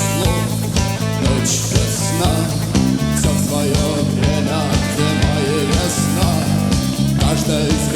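Rock band playing live, an instrumental passage between sung verses: a steady drum beat under sustained bass and guitar lines.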